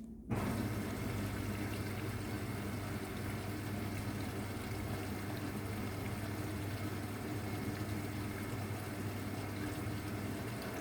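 Luxor WM 1042 washing machine in its rinse cycle: water rushing through the machine, with a steady low electric hum from the valve or pump motor. It starts abruptly just after the beginning and holds even.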